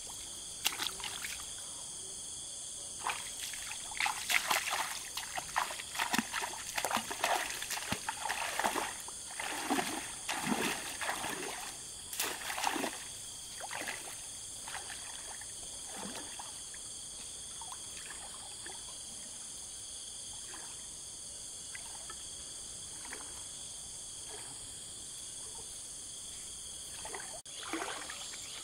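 Water splashing and trickling in quick irregular bursts, busiest in the first half and then thinning out to occasional drips, over a steady high hiss.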